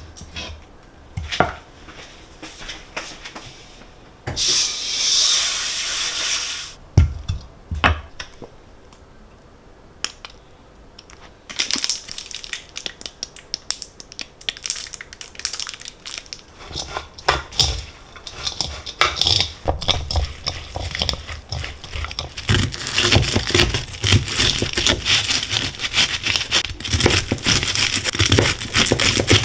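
Kitchen cooking sounds: scattered clicks and clinks of utensils and dishes, then a hiss lasting about three seconds starting about four seconds in. From about twelve seconds in comes a long run of dense crackling and clicking that gets busier toward the end.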